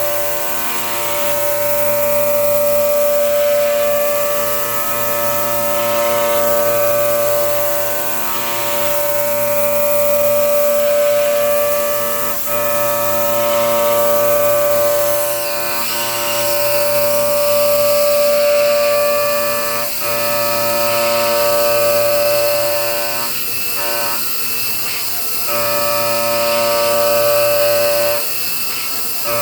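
High-speed CNC milling: the cutter makes a steady, high-pitched whine of several fixed tones while it cuts, breaking off briefly a few times as it leaves the material.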